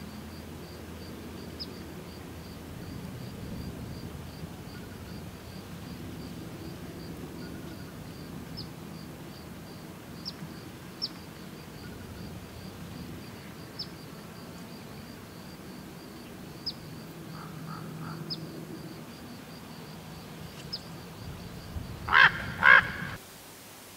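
Common raven giving two loud calls in quick succession near the end, over a steady low outdoor rumble and a faint, evenly repeating high tick.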